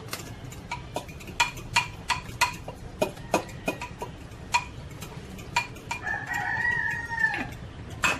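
Chickens clucking in a run of short, sharp clucks. About six seconds in, a rooster crows once, holding one pitch for over a second before it drops away.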